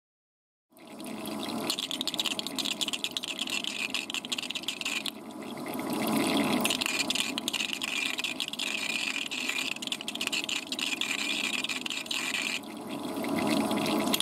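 Home-built EDM (spark-erosion) machine cutting a con-rod bolt with a copper electrode under liquid: a dense, rapid crackling of sparks mixed with bubbling and flushing liquid. It starts under a second in and grows and fades a few times.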